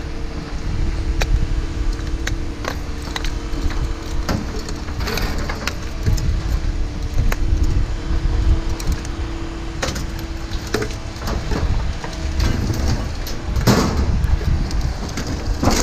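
An engine running steadily with a low rumble and hum, over scattered clicks, clinks and knocks of scrap metal being handled.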